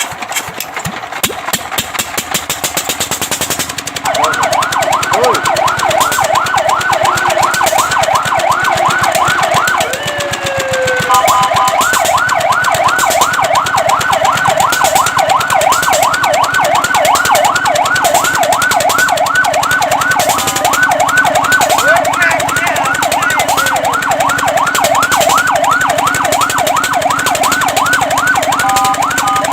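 Fire truck's electronic siren on a fast yelp, warbling up and down about five times a second. About ten seconds in, it breaks briefly into a falling sweep and a short steady tone, then goes back to the yelp. Before the siren starts, about four seconds in, there is a fast, even clicking.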